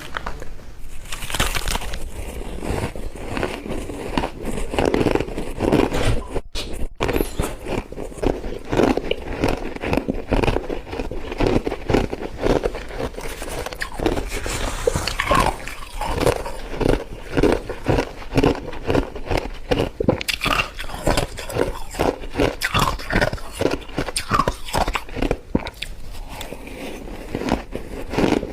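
Someone biting and chewing mouthfuls of soft white freezer frost: rapid, crisp crunching, many crunches a second, with a brief pause about six seconds in.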